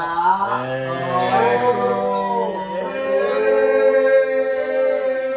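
Male singing with long held notes, several pitches sounding at once.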